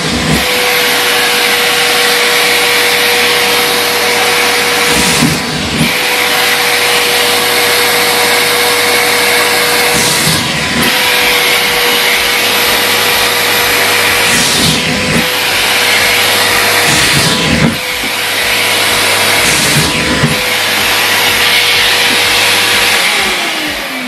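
Miele C3 canister vacuum cleaner running, a steady motor whine over rushing air as it sucks up socks, with the airflow note dipping briefly about five times. Near the end the motor is switched off and its whine falls away as it winds down.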